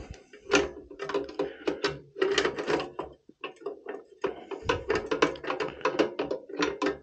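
Many quick metal clicks and knocks from a Riello oil burner's nozzle-and-electrode assembly being handled and slid back into the burner housing, worked into place by hand.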